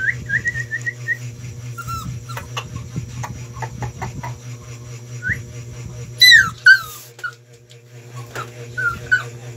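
A puppy whimpering in short high-pitched whines. About six seconds in come two loud cries falling in pitch. A few light taps fall in between.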